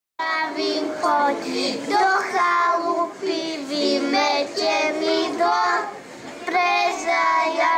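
A group of young children singing a song together into a microphone, in short held phrases.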